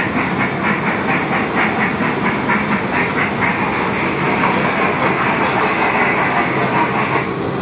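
Thomas the Tank Engine ride-on train running, with a rhythmic hissing chuff of about four beats a second over a steady rumble. The beats blur into a continuous hiss after a few seconds, and the hiss drops off near the end.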